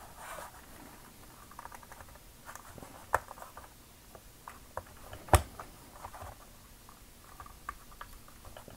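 Plastic clicks and rubbing as hands work the Generation Toy GT-2 Tyrant figure loose from the tight-fitting peg of its display stand. Scattered small ticks, with a sharp click about three seconds in and a louder one a little past five seconds.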